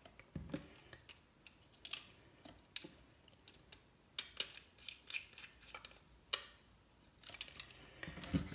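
Faint, irregular small clicks and taps of a wire lead being fitted to the input terminal of an adjustable voltage regulator board, with one sharper click about six seconds in.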